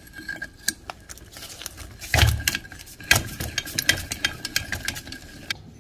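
Screws and small metal parts of a diesel exhaust brake valve clinking and rattling as they are handled over the cast valve housing, with two louder knocks about two and three seconds in.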